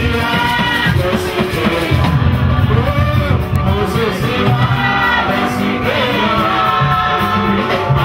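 Congregation singing a worship song with instrumental accompaniment, over a steady, prominent bass line.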